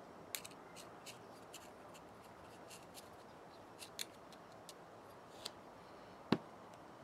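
Light metal clicks and scrapes of a small screwdriver working inside a brake master cylinder body, irregular and faint, with one sharper knock a little after six seconds.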